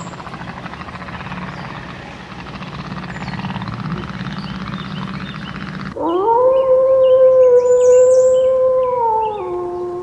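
A steady rushing noise for about six seconds, then a gray wolf gives one long, loud howl: it rises at the start, holds level, and drops to a lower pitch about three seconds in, still going at the end.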